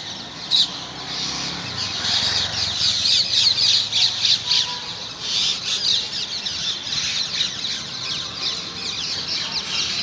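A big flock of parrots roosting in trees: a dense chorus of many overlapping high calls that swells in the middle, with one sharp click about half a second in.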